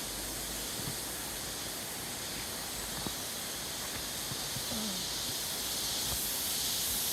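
Cicadas buzzing in the forest canopy as a steady high-pitched hiss, slowly getting louder near the end.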